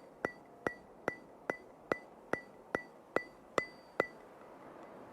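Evenly spaced metronome-like ticks, about two and a half a second, each with a short high ring, stopping about four seconds in.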